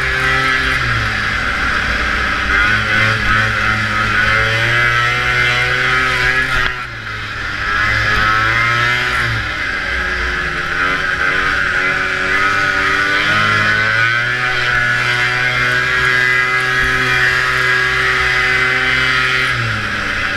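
Vintage two-stroke snowmobile engine running hard under load, its pitch falling and climbing again several times as the throttle is eased and reopened, with a sudden brief throttle cut about seven seconds in.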